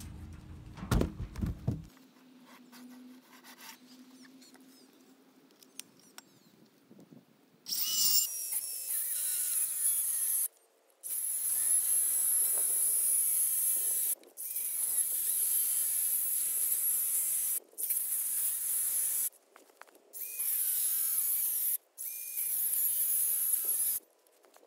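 Handheld circular saw cutting into an old timber sleeper: loud high-pitched blade noise in several stretches, each cut off abruptly, from about a third of the way in. Near the start, a few heavy wooden knocks as a sleeper is tipped off a trailer.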